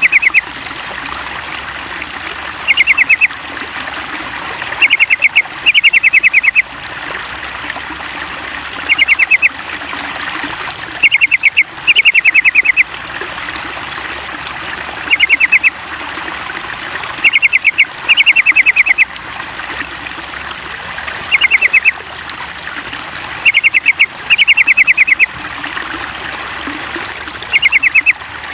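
Yellow-vented bulbul giving short, rapid bursts of high chattering notes, one burst every two to three seconds, over a steady trickle of running water.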